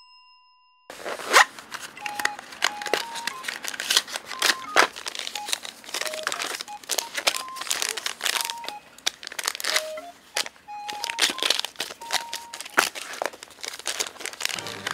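Paper packet of silvervine powder crinkling and crackling as it is handled and pulled at by hand and by a kitten, starting about a second in and going on densely, with short soft notes of background music between.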